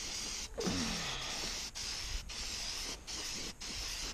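Aerosol spray-paint can hissing in a run of short bursts, about six with brief breaks between them, as black paint goes onto a steel snowmobile ski.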